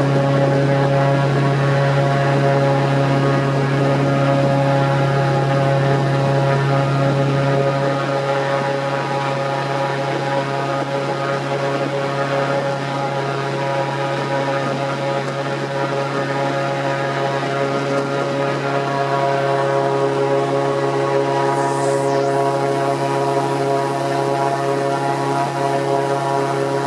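Airboat's engine and large air propeller running at cruising speed: a loud, steady pitched drone with many overtones, easing slightly about eight seconds in.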